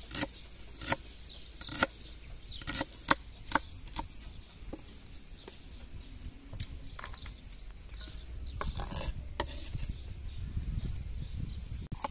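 Kitchen knife slicing red onion on a wooden cutting board: a series of sharp knocks as the blade strikes the board, several in the first four seconds, then softer, irregular cutting.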